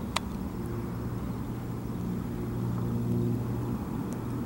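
Distant diesel locomotive approaching, its engine a steady low drone, with one brief sharp click near the start.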